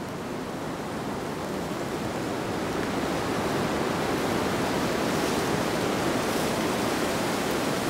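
A steady rushing noise with no distinct events, slowly growing louder.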